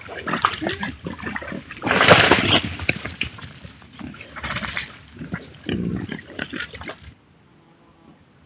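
Wild boar grunting and splashing in a mud wallow, a dense run of irregular calls and sloshes, loudest about two seconds in. The sounds cut off abruptly a little after seven seconds.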